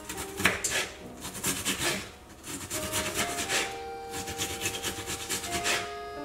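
Kitchen knife cutting through a raw onion and tapping the cutting board, in quick runs of strokes with a short pause about two seconds in.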